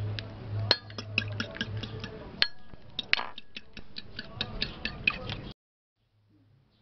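Metal spoon beating raw eggs in a ceramic bowl, clicking rapidly against the bowl's side, then stopping abruptly about five and a half seconds in.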